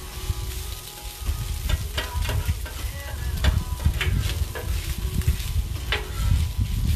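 Taco meat sizzling on a Blackstone flat-top griddle, with a metal spatula scraping and clacking on the steel plate several times. A low rumble comes in about a second in and stays under it.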